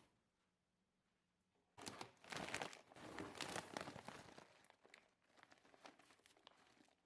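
Plastic packaging crinkling and tearing as a parcel is opened by hand. It starts suddenly about two seconds in and fades out after about five seconds.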